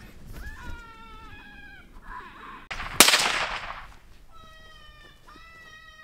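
FoxPro Hammerjack electronic predator caller playing a prey distress call: drawn-out, wavering high squeals in two runs. About halfway through, a single loud sudden burst of noise cuts in and fades over about a second.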